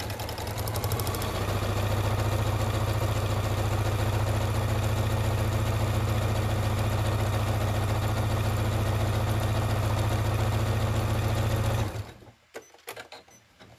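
Electric sewing machine with a walking foot stitching a zigzag through many layers of fabric, picking up speed in the first second and then running steadily at speed. It stops suddenly near the end, followed by a few light clicks.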